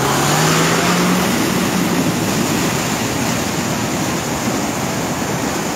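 Muddy floodwater rushing across a road as a steady, loud roar of water, with a vehicle engine rising in pitch over the first two seconds.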